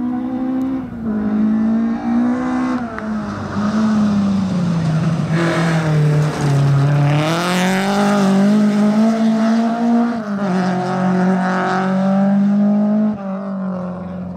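Rally car engine running hard, its pitch rising and falling as the driver works through the gears and lifts off. The pitch dips low in the middle and then climbs again, with a stretch of harsher noise at that point.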